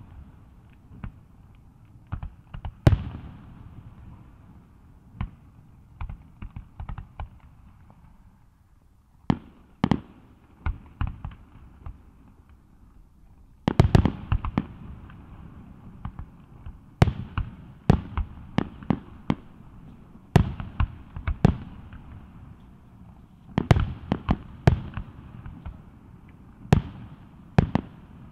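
Aerial fireworks going off: sharp bangs in clusters of several, a few seconds apart, each cluster trailing off in echo.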